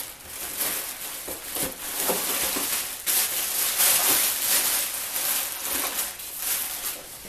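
Continuous rustling and scraping of cardboard and styrofoam packaging as a heavy miter saw is pulled out of its box.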